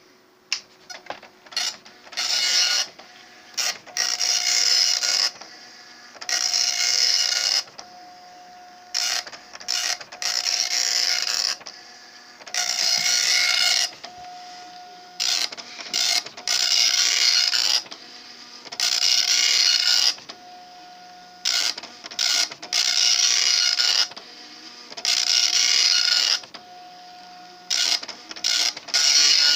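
Star LC-10 dot matrix printer printing its character-set self-test, a few clicks at first, then the print head rasping across the page in repeated passes of about a second each, with a brief steady tone in the short gaps between passes. The printer runs freely again after PTFE lubricant on its stepper motors and carriage rod and IPA in the ribbon cartridge.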